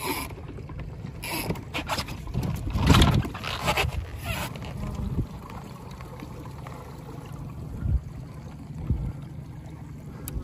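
Wind rumbling on the microphone over open sea, with a few brief louder noise surges in the first half, the loudest about three seconds in.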